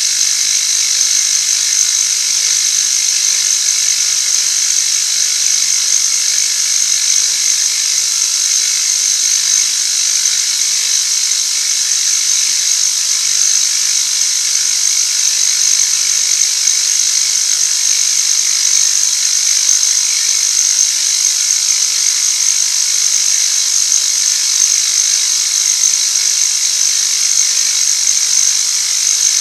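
Milling machine cutting steel at a light cut of about 25 thou, a steady high-pitched whine and hiss of the cutter working the metal without letting up.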